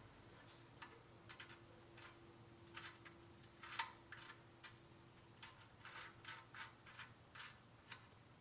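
Faint, irregular clicks and light taps from handling metal parts and tools under the truck, around a freshly hand-tightened oil drain plug.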